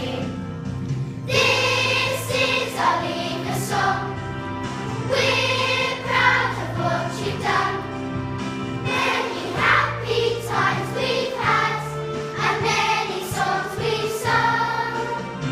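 Group of children singing a song together with musical accompaniment, the voices carrying phrase after phrase over steady low notes.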